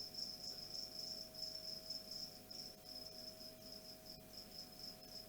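A cricket stridulating: a faint, steady, high-pitched song made of rapid, even pulses.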